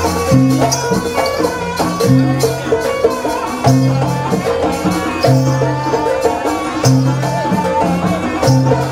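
Live Javanese jaranan (kuda lumping) music from a gamelan-style ensemble: deep bass notes repeating about every one and a half seconds under a busy melody and rattling percussion.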